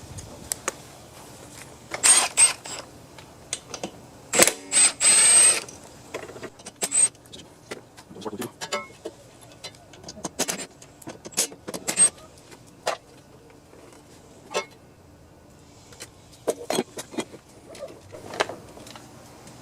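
Hand tools and metal engine parts clinking and knocking irregularly as a small lawn mower engine is worked on, some strikes leaving a brief high metallic ring.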